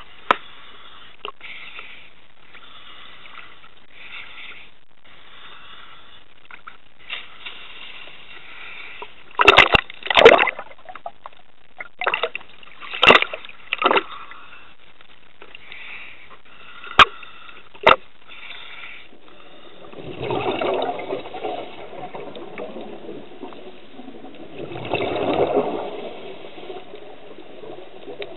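Seawater sloshing against a camera held at the surface beside a dive boat, with a cluster of loud splashes about ten to fourteen seconds in as a scuba diver goes into the water. After that the camera is under water, and two swells of bubbling come about five seconds apart.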